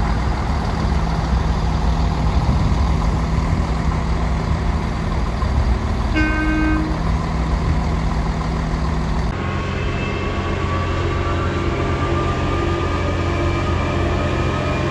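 Class 170 Turbostar's underfloor diesel engines running steadily, with a short horn toot about six seconds in. About nine seconds in the sound switches to the different steady engine note of a Plasser & Theurer 09-4x4/4S Dynamic track tamper, with faint, slowly rising whines over it.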